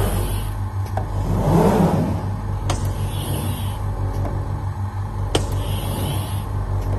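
CNC glass cutting table running as its cutting head travels over a glass sheet: a steady low hum with a pulsing texture, broken by a few sharp clicks and short hisses.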